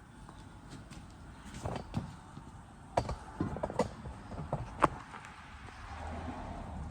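A series of irregular knocks and clunks from hand work on a tractor wheel during a tire change, about half a dozen over a few seconds. The loudest come about three seconds in and near five seconds, and a low steady hum comes up near the end.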